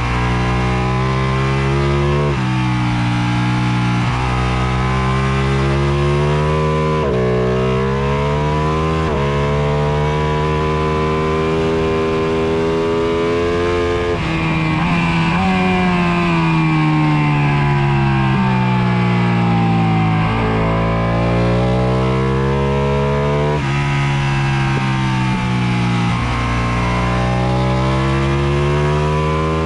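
Ducati superbike engine at high revs on a fast lap, climbing in pitch and dropping sharply at each upshift, several times over. About halfway through the revs fall away gradually as the bike slows for a corner, then it accelerates and shifts up again.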